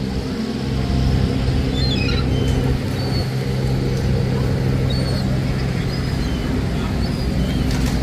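Steady low drone of a boat's engine running, with a few faint high bird calls over it.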